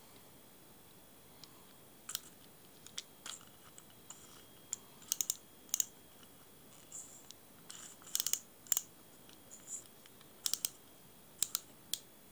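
Irregular sharp clicks and snaps from the mechanism of an Intrepid Super Twin fixed spool reel being worked by hand, several coming in quick clusters.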